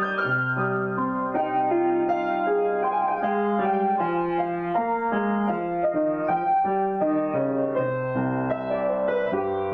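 Solo piano improvisation: a melody of single notes moving over held chords and low bass notes at an unhurried, even pace.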